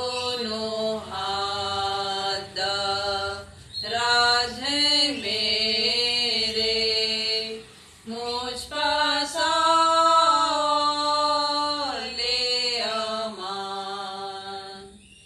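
Two women singing a Hindi hymn together, unaccompanied, in long held notes with short pauses for breath every few seconds.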